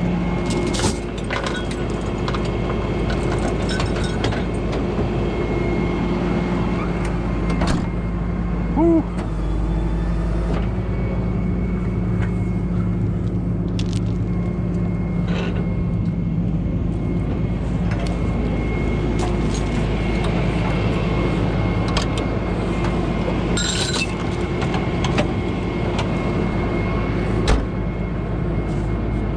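Heavy truck engine idling steadily, with scattered metal clanks and clicks and a short squeak about nine seconds in.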